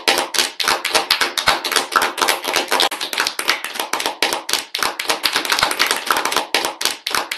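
Applause: many people clapping together, dense and steady.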